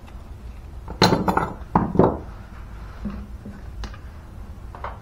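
Metal tools and small parts clinking and clattering on a workbench as they are shifted aside, with a burst of clatter between about one and two seconds in, then a couple of lighter knocks.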